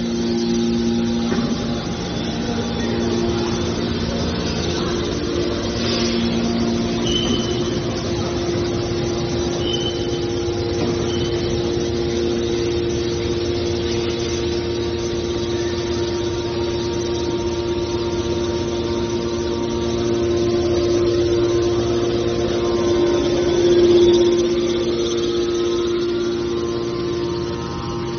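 Hydraulic scrap metal baler press running, its power unit giving a steady mechanical hum with a few short high squeaks.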